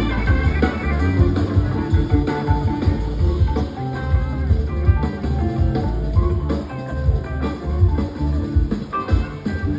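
Live blues-rock band playing: an electric guitar solo over the band's drums, the guitar notes often sliding in pitch.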